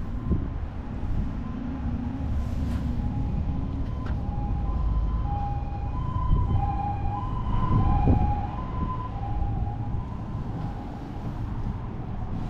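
Two-tone hi-lo siren of a Japanese ambulance, alternating between a higher and a lower note about every half second. It grows louder toward the middle and fades near the end, over a steady low rumble.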